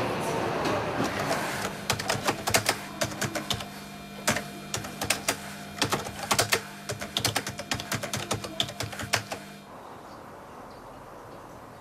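Typewriter keys clacking in an irregular run of keystrokes over a steady low hum, starting about two seconds in and stopping near the tenth second.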